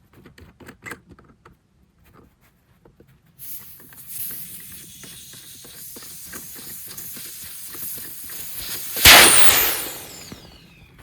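Light rustling and clicks, then air hissing steadily out of an inflatable tent's opened air valve as the tent deflates. The hiss rises to a loud rush about nine seconds in, then fades.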